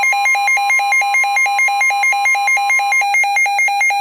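Midland NOAA weather alert radio sounding its alarm for a new severe thunderstorm warning: a loud, rapid two-pitch warble at about eight beeps a second, with a steady tone under it that cuts off about three seconds in.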